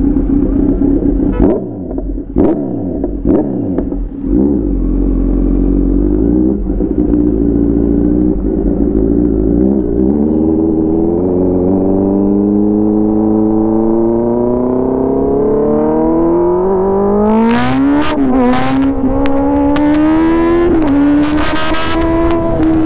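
Motorcycle engine ridden hard with the dB killer taken out of its exhaust. Several quick upshifts in the first few seconds, each a sudden drop in pitch, then a long pull in one gear with the pitch rising steadily, another shift near the end, and bursts of harsh noise over the engine in the last few seconds.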